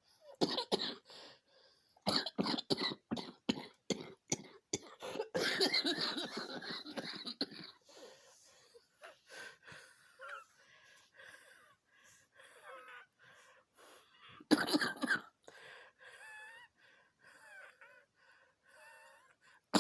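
A woman's coughing fit after jogging, as she tries to hold it back: quick runs of hacking coughs through the first eight seconds, then quieter strained breaths with thin whistling sounds, and one more loud burst of coughs about fifteen seconds in.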